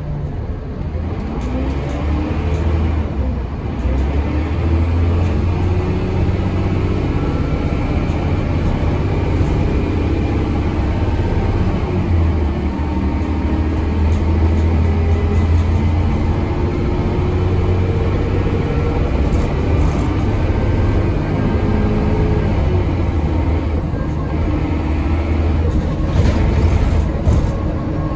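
Dennis Trident double-decker bus's diesel engine and Voith automatic gearbox heard from inside the passenger saloon, driven hard under harsh throttle pumping, the engine note repeatedly rising and falling over a steady low hum.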